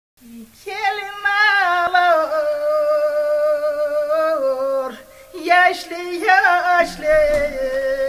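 A woman singing alone, unaccompanied, in long wavering held notes that step and slide down in pitch, with a short break about five seconds in.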